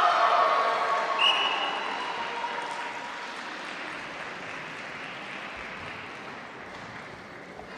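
Spectators cheering and applauding the judges' decision in a karate kata bout, with shouts at first, then fading steadily. A short whistle sounds about a second in.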